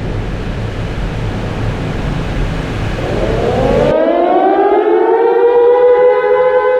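A rushing noise cuts off abruptly about four seconds in. Over it, a loud siren wail rises in pitch as it winds up, then holds steady.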